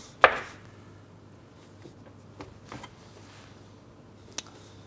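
Bread dough being divided by hand: one sharp scrape or knock just after the start, then a few light taps and soft knocks as pieces of dough are cut with a plastic dough scraper and set on a digital kitchen scale.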